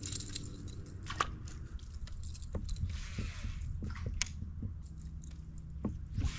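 Scattered small clicks and rustles of gear being handled, with two short hissing rustles, over a low steady hum.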